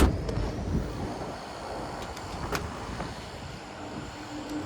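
Carrier rooftop air-conditioning unit running: a steady whoosh and low rumble of its fans, with a sharp click at the start and a few lighter knocks. A faint steady hum comes in near the end.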